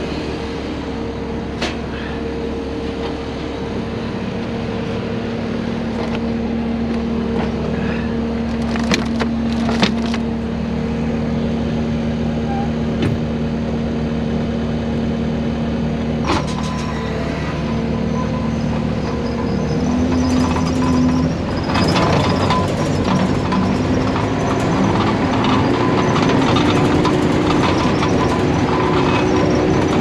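Case TR320 compact track loader's diesel engine running steadily, heard from the operator's seat, with a few sharp clanks. About 20 seconds in the engine note shifts and gets louder as the machine works harder.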